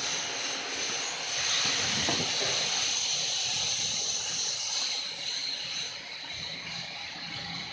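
CNC router running, its spindle giving a high-pitched whine over a steady hiss; the sound eases a little about five seconds in.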